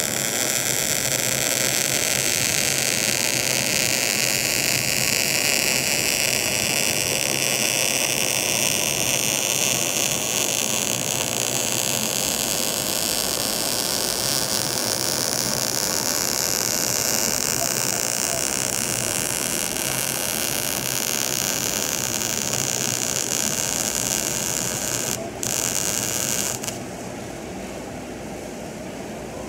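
Wire-feed welding arc crackling and sputtering steadily as a bead is run on steel, with a brief break about 25 seconds in. The arc cuts off shortly after, leaving a quieter steady shop hum.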